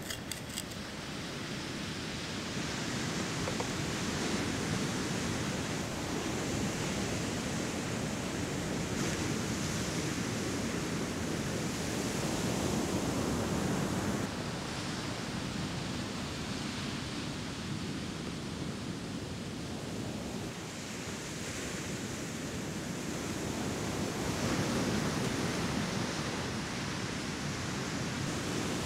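Ocean surf breaking: a steady rushing noise that swells and eases every several seconds, with a few light clicks at the very start.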